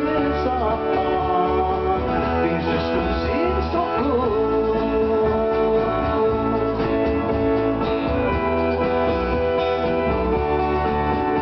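Live song played on acoustic guitar and electronic keyboard, with a voice singing over it in the first few seconds, then instrumental.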